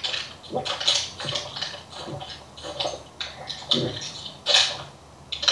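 A person chugging a 500 ml bottle of water: a string of irregular gulps and swallows with breathy noise between them, heard over a video call.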